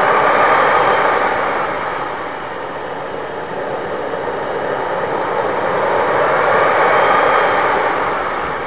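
Radio-controlled model jet's engine running, heard from on board as a steady rushing noise. It swells about a second in, eases off, and swells again near the end.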